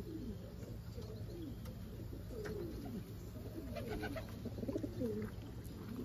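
Domestic pigeons cooing, several birds at once, low rising-and-falling coos repeating and overlapping.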